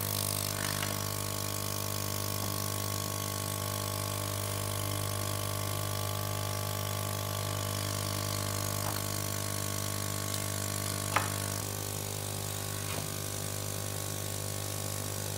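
Small electric air pump running with a steady hum, a low note with higher overtones; it feeds the hose pushed under a duck's skin to inflate it for roasting. A few light knocks and clicks from handling the ducks on the metal tray.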